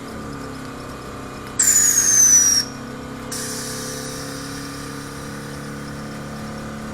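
Air-suspension valve blowing air: a sharp hiss with a whistle falling in pitch, lasting about a second and a half in, over a steadily running engine.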